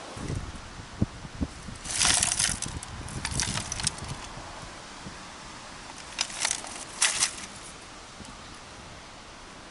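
The shot-up Blu-ray burner's thin sheet-metal cover and loose plastic parts handled: rustling, rattling and scattered clicks, with a few dull knocks in the first second and a half.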